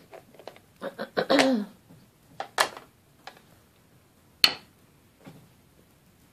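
Hard plastic clicks and knocks of clear acrylic stamp blocks being picked up, handled and set down on the craft table: a quick cluster about a second in, another click near the middle, and a single sharp knock, the loudest, about four and a half seconds in.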